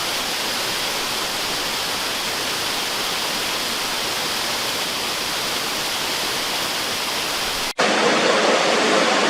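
Waterfall: a steady rush of falling water. Near the end it cuts out for an instant and comes back louder and fuller.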